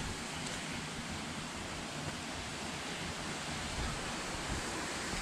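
Steady rushing noise with an uneven low rumble beneath it, of the kind made by wind or running water outdoors.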